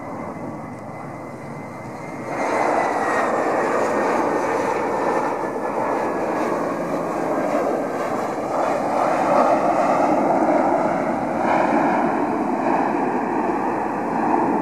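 Airbus A320-family airliner's jet engines on landing: a steady whine that slowly falls in pitch, then about two seconds in a sudden surge of loud rushing noise as reverse thrust is applied after touchdown. The noise stays loud, swelling again a couple of times, as the jet rolls out on the runway.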